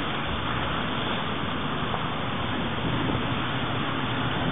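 Steady rushing wind noise on the camera microphone, with an uneven low rumble from the buffeting.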